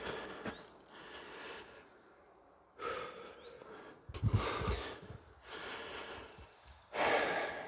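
A person breathing heavily in and out, about six breaths, one every second and a half or so.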